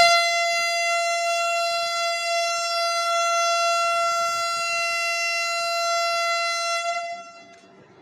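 Vande Bharat Express train horn sounding one long, steady, single-pitched blast that lasts about seven seconds and cuts off near the end.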